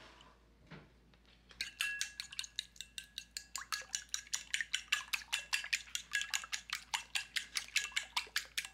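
Fork beating eggs and milk in a ceramic bowl, the tines clicking rapidly against the bowl's side with a light ring, about six strokes a second, starting about a second and a half in.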